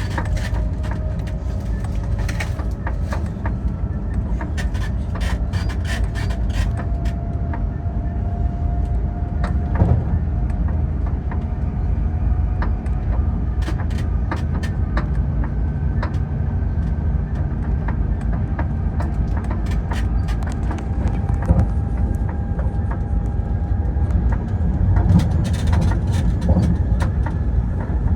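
A train running on rails: a steady low rumble with many sharp clicks and knocks, and a faint whine that rises slowly in pitch.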